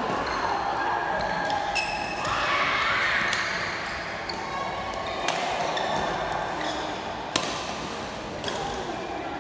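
Badminton doubles rally: sharp racket hits on the shuttlecock every second or two, the sharpest about seven seconds in, with shoes squeaking on the court floor.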